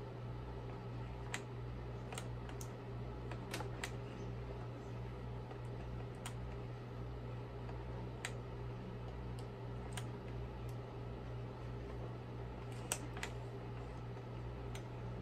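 Scattered light plastic clicks from the red foot pedal of a Eureka upright vacuum being worked by hand, over a steady low hum; the vacuum motor is not running.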